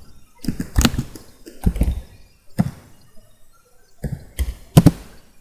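Computer keyboard being typed on in about four short bursts of clacking keystrokes, each with a dull thud, separated by brief pauses.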